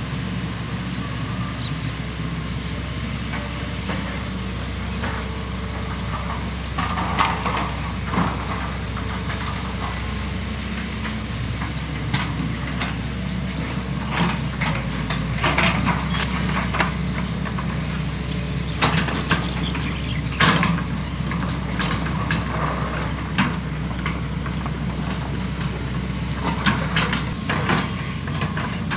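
Diesel engines of two hydraulic excavators, a Hitachi EX200-5 LC and a long-reach Sumitomo SH120-3, running steadily as they dig out a ditch. Short squeaks and knocks from the working booms and buckets come through the drone, more often in the second half.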